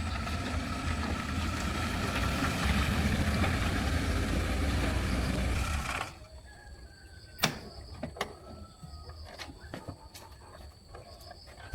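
A vehicle engine running with a steady low rumble that cuts off suddenly about six seconds in. It gives way to quiet outdoor ambience with a few sharp clicks and faint short chirps.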